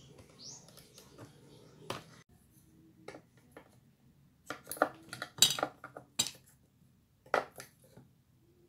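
Metal fork clinking and scraping against the plates of an electric waffle maker while prying out cooked waffles: a single click about two seconds in as the lid is opened, then a cluster of sharp clinks in the middle and one more near the end.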